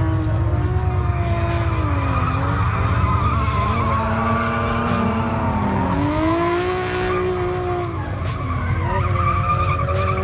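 Drift cars sliding with tires squealing, their engines rising and falling in revs several times as the drivers work the throttle.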